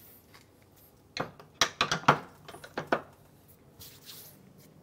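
A cluster of sharp knocks and clinks between about one and three seconds in, as a kitchen jar, spoon and other utensils are handled and set down on a countertop. Then a soft brushing of hands rubbed together near the end.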